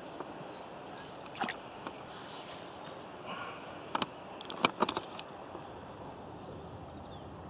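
Handling noise from fishing tackle and a freshly landed fish: a few sharp clicks and knocks over a steady background hiss, the loudest cluster about four to five seconds in.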